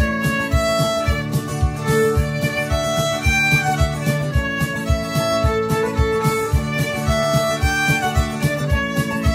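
Fiddle playing a jolly, lively dance tune, note after note with no pause, over a steady low beat of about three to four thumps a second.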